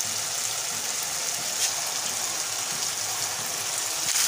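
Chicken, capsicum and tomato masala sizzling steadily in a wok, with a light tap about a second and a half in. It grows louder at the very end as the boiled macaroni goes into the pan.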